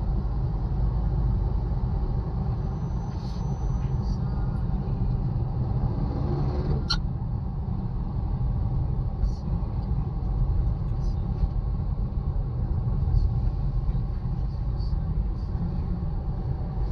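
Road traffic in heavy congestion: a steady low vehicle rumble, with a brief sharp click about seven seconds in.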